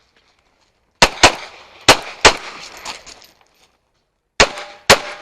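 Compact backup pistol firing six shots in three quick pairs, each crack followed by a short ringing echo: two about a second in, two more a moment later, and a last pair near the end after a pause.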